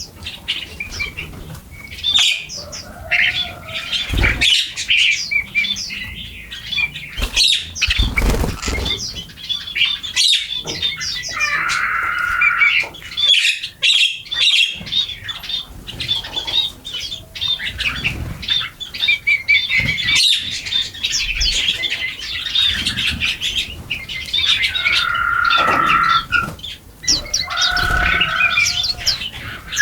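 A flock of small birds chirping busily and continuously while feeding, with a few wing flutters and now and then a harsher, lower squawking call.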